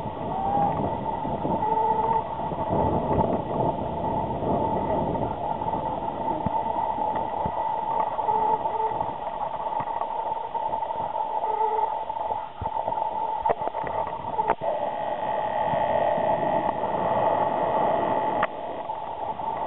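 Steady rushing noise of a river, with faint distant voices now and then.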